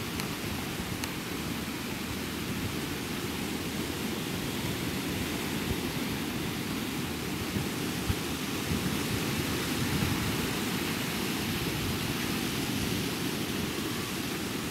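Ocean surf breaking and washing up the beach: a steady, unbroken rushing noise with a heavy low rumble underneath.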